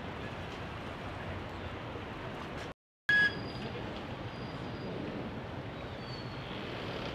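Steady outdoor riverside city ambience: a constant murmur of distant traffic and river noise. Just before the middle the sound cuts out completely for a moment, then returns with a short, loud, high-pitched tone.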